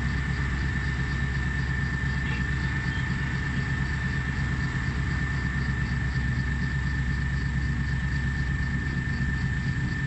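Diesel engine of a Komatsu hydraulic excavator running steadily under load while it digs and swings a bucket of earth, a low drone with a thin steady high whine over it.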